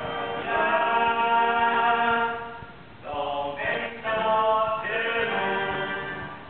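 Several voices singing long held notes together in a stage song: one long phrase, a short break about three seconds in, then a second held phrase.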